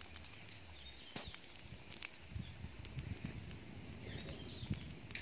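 Faint crackling of an open firewood fire, with scattered sharp snaps.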